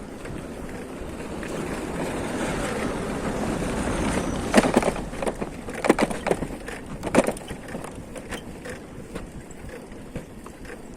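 Vehicle noise swelling over about four seconds, then three sharp knocks a second or so apart, after which the noise settles lower.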